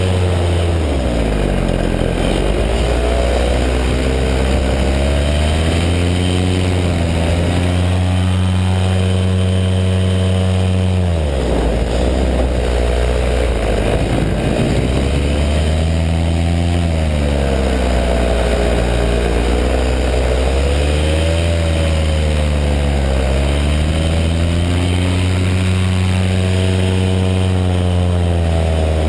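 Paramotor engine and propeller running hard, its pitch repeatedly dropping and climbing back over a few seconds at a time as the throttle is eased and opened.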